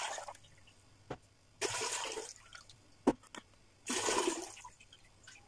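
Water being poured off from glass canning jars of cucumbers into a pot, in three short gushes about two seconds apart. A sharp knock comes about three seconds in.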